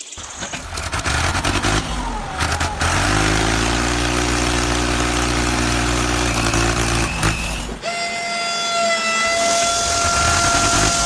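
A vehicle engine running with a steady low hum. About eight seconds in the hum drops away and a steady high-pitched tone takes over and holds.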